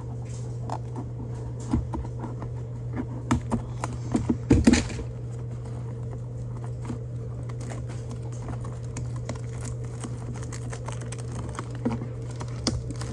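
Fingers handling and tapping a cardboard trading-card blaster box, with scattered clicks and scratches and a louder run of clicks about four seconds in, then picking at its plastic wrap. A steady low hum runs underneath.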